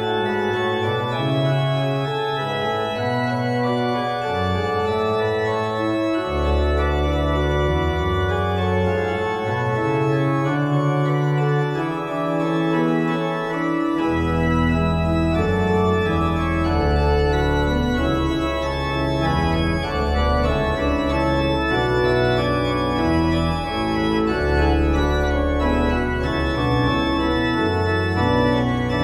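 Church organ playing a recital piece in full, sustained chords, with deep pedal bass notes coming in about six seconds in and again from about fourteen seconds.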